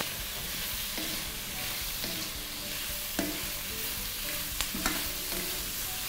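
Chunks of carrot and onion sizzling in oil in a stainless steel wok while being stirred with a wooden spoon, with a few short knocks of the spoon against the pan.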